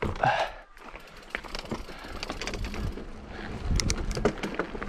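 Mountain bike riding down a wet, rough trail: tyre noise and the rattle of the bike, with many small knocks, under wind rumble on the microphone, getting louder near the end. A short loud sound right at the start.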